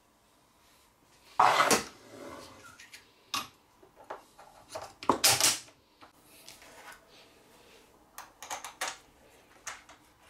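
Metal hardware handled on a wooden desktop: a steel carriage bolt, washer, wing nut and metal lamp bracket clink and knock. The loudest knocks come about a second and a half in and again around five seconds in, with lighter clicks near the end.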